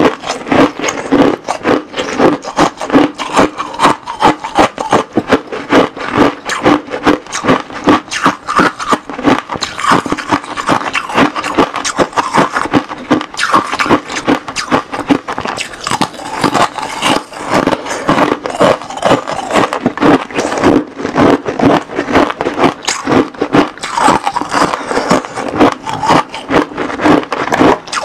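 Close-miked crunching of freezer frost being bitten, chewed and broken by hand, a dense run of crisp crackles.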